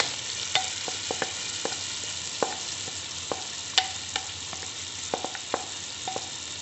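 Onion paste frying in hot oil as pieces of marinated mutton are tipped into the pan: a steady sizzle with frequent sharp pops and crackles. The paste has cooked down until it bubbles, the point at which the meat goes in.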